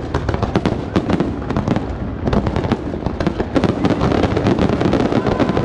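Fireworks display at full barrage: many shell bursts and crackles in quick succession, with no pause between them. The bangs grow denser and brighter a little over two seconds in.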